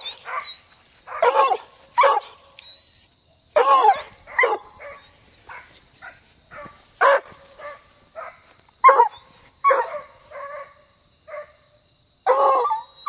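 Hunting dog barking and yelping excitedly in short, irregular barks, about one or two a second.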